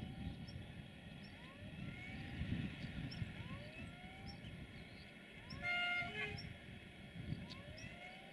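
Electroputere LDE2100 (060-DA) diesel-electric locomotive approaching with a low engine rumble, then sounding one short horn blast just under six seconds in, the loudest sound.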